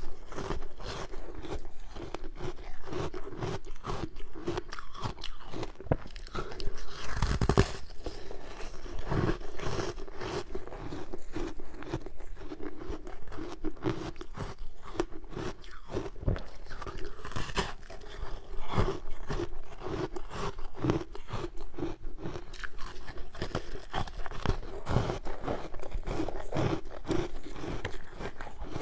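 A person biting into and chewing ice, close-miked: continuous irregular crunching and cracking, with one especially loud bite about seven seconds in.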